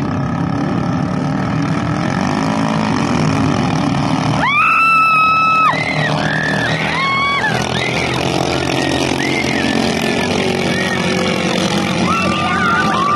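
Small engines of racing outrigger boats running flat out, a steady low drone. Several high-pitched held tones sound over it, the longest about a second long a little over four seconds in.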